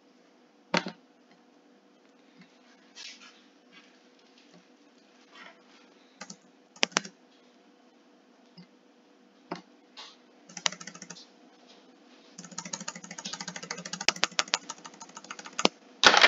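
Computer keyboard clicks: scattered single keystrokes and clicks for most of the time, then a fast run of typing about twelve seconds in.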